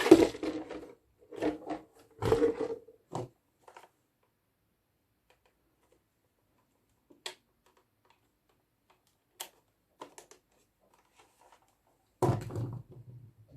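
Handling noises from unpacking an RC nitro car kit: several bursts of rustling and knocking, a few separate sharp clicks in a quiet stretch, then more rustling and knocking near the end.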